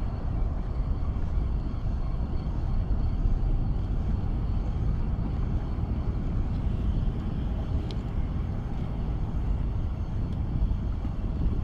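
Wind buffeting the microphone: a steady low rumble that rises and falls, with one faint tick about eight seconds in.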